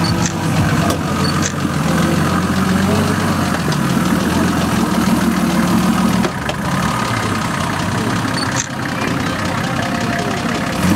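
Nissan Patrol 4x4's engine running steadily at low revs as the vehicle crawls through deep mud ruts. The engine note changes abruptly a little past halfway.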